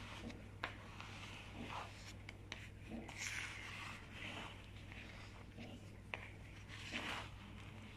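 A plastic spatula stirring and scraping crumbly scone dough in a plastic mixing bowl: soft scrapes with occasional light clicks against the bowl, over a steady low hum.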